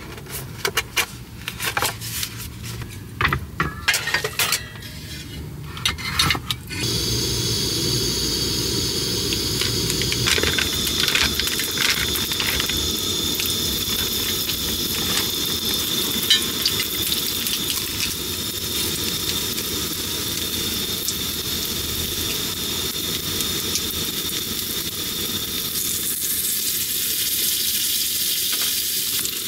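A few sharp clicks and knocks of handling, then from about seven seconds in, takoyaki sizzling steadily as it reheats.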